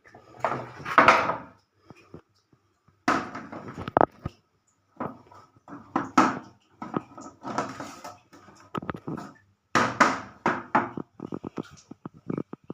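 Irregular knocking, clattering and scraping of hard parts being handled, in bursts of up to about a second with short gaps between them.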